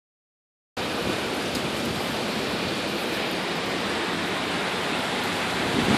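Heavy hurricane rain falling on flooded ground, a steady even hiss that starts just under a second in.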